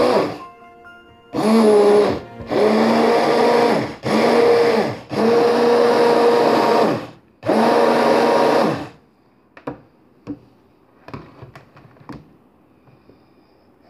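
Blender running in five short pulses of one to two seconds each as it blends melon, banana and apple with water, its motor pitch dipping as each pulse starts and falling away as it stops. Near the end come a few light knocks and clicks.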